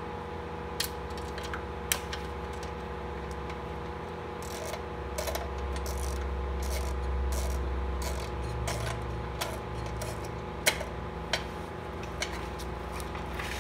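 Ratchet and socket clicking in short spells and metal tapping as bolts are backed out of a Predator 212cc engine's housing, over a steady low hum.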